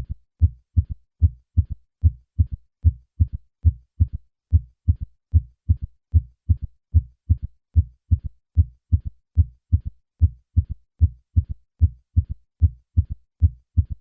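Heart sounds heard through a stethoscope with a third heart sound: each beat is a low thud and a second sound, followed shortly by a faint, low-pitched third thud in early diastole, giving a steady three-part 'Ken-tuck-y' gallop rhythm. In an adult over 40 this ventricular gallop usually indicates heart failure.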